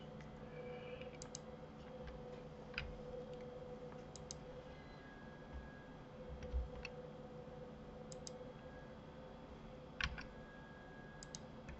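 Faint computer mouse and keyboard clicks, a few scattered over several seconds, some in quick pairs, over a steady low hum.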